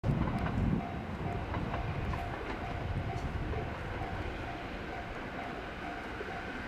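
An E231-series electric train runs on the track with a low rumble, heaviest in the first second. Over it, a level crossing warning bell rings steadily about twice a second.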